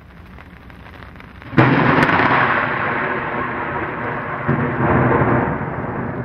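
Thunder sound effect: a low rumble builds, then a sudden loud thunderclap about one and a half seconds in with a sharp crack just after, followed by a long rolling rumble that slowly fades.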